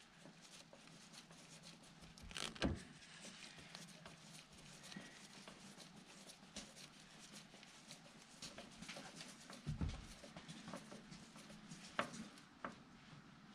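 Faint ticks and scrapes of a screwdriver turning a screw into a metal fuel pump retainer ring, with a sharper knock about two and a half seconds in and another near the end.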